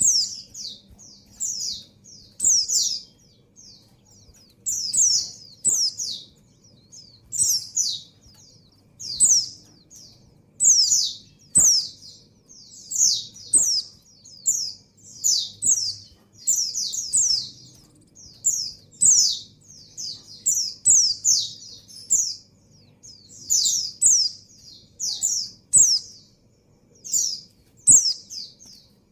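Female white-eye (pleci) giving short, high, downward-sliding chirps in quick clusters, about once a second throughout. These are the calls of a female in breeding condition calling for a male.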